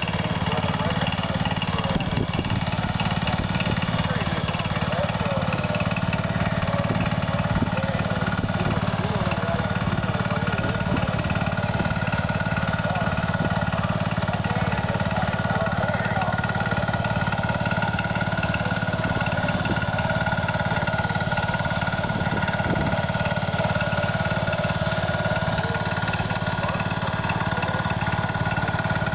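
Garden tractor engine running steadily at an even speed as the tractor creeps along, with a steady high whine on top.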